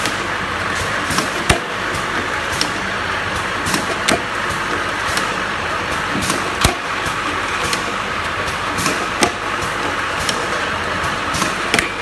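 Automatic rotary bottle filling, plugging and capping machine running: a steady mechanical whir and hiss, with sharp clacks about every one to one and a half seconds as the turntable and capping head cycle.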